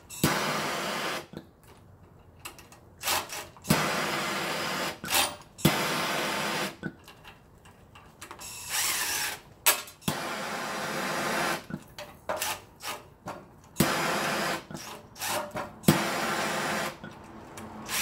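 Cordless impact driver run in repeated short bursts of about a second each, starting abruptly, with brief pauses between them.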